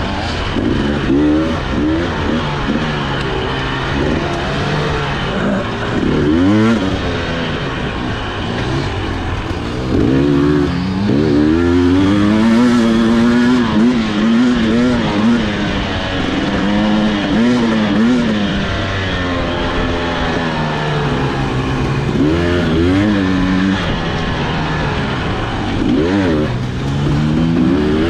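Husqvarna TE300i two-stroke dirt bike engine under way, its pitch rising and falling over and over as the throttle is opened and closed.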